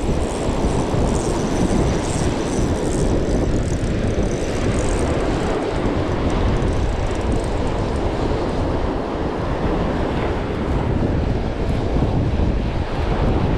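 Wind buffeting the microphone with a steady low rumble, over the wash of breaking surf.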